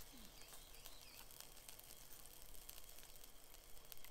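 Near silence: faint outdoor ambience, with a few faint high chirps in the first second.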